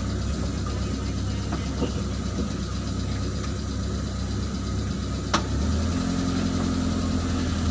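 Truck engine idling steadily, heard from inside the cab. A sharp click comes a little past five seconds in, after which the engine note steps up slightly and holds steady.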